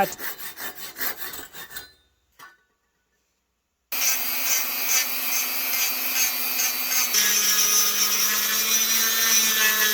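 Quick rubbing strokes on a small piece of wood for about two seconds. After a short silence, a Dremel 395 rotary tool runs steadily with a high whine from about four seconds in, its pitch dropping slightly about seven seconds in.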